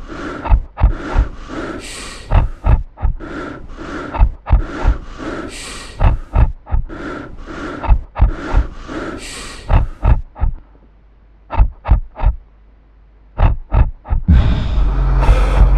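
Soundtrack of deep thumps, about two to three a second, alternating with harsh breath-like noisy bursts; a little after halfway it thins to a few sparse clicks, then a loud low rumble with a steady hum comes in near the end.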